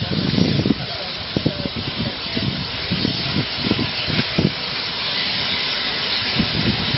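Steam locomotive 60163 'Tornado', a Peppercorn A1 Pacific, hissing steam as it runs slowly in along the platform, with irregular low thumps through the hiss.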